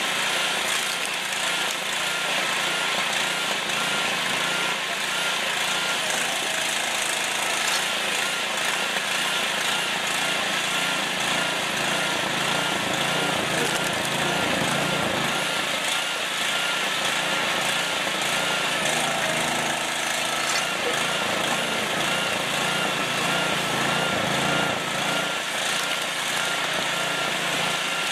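Small petrol engine of a hydraulic vertical log splitter running steadily while logs are split.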